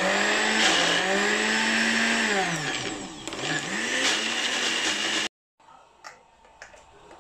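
Ikon electric mixer-grinder running at speed, grinding wet grated coconut with fennel, garlic and green chilli into a paste. Its motor pitch sags and recovers a couple of times midway. The sound cuts off abruptly about five seconds in, and a few faint clicks follow.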